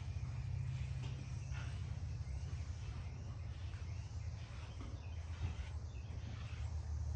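Curry comb scrubbing over a donkey's shedding coat in short, irregular scratchy strokes, over a steady low rumble.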